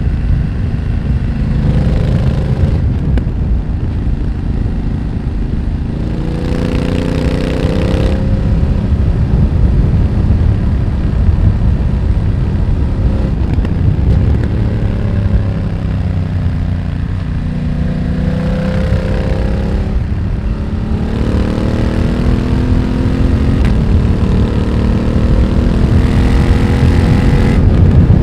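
BMW F900R's parallel-twin engine through a Mivv X1-M slip-on exhaust, pulling hard and easing off again and again, its pitch rising in several runs. A steady low wind rumble lies under it.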